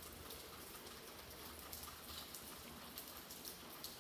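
Faint room tone: a low steady hiss and hum with scattered light ticks and clicks.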